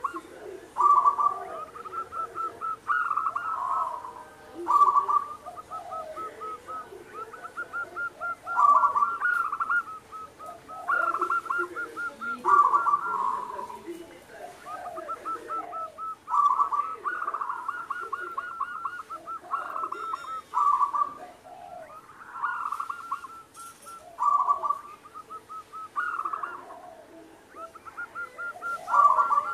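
Zebra dove (perkutut) singing over and over: phrases of fast, rattling coo notes, a new phrase about every two seconds.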